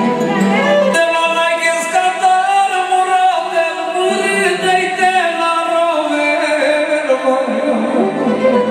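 Live music: a man sings a Romanian-language song into a handheld microphone over band accompaniment, his voice gliding between long held notes.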